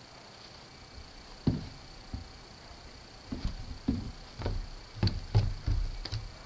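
Footsteps thumping on wooden deck steps: about ten irregular heavy knocks starting a second and a half in, coming faster near the end.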